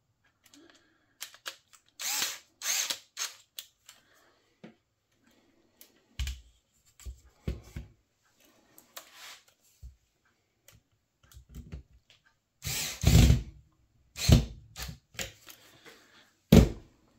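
Cordless screwdriver driving in a screw on a copier drum unit's cleaner-blade mount, running in several short bursts, the loudest about two-thirds of the way through, mixed with knocks of the plastic unit being handled.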